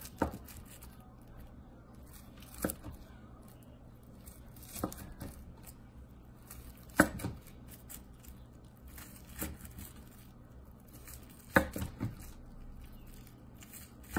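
Kitchen knife slicing through a cling-film-wrapped sushi roll and knocking on the wooden cutting board at the end of each cut, one sharp knock roughly every two seconds.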